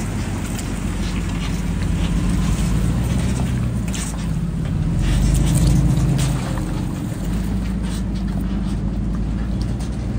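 Toyota 4x4 engine running at low trail speed, swelling louder about five to six seconds in as it climbs over rough ground. Scattered knocks and clatter from the tyres and chassis on the rocky trail come through over it.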